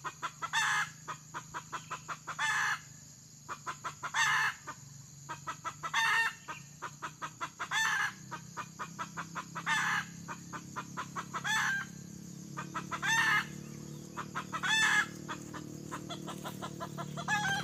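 Junglefowl rooster giving short, clipped calls, about ten of them every one and a half to two seconds, with rapid soft clucks ticking between the calls.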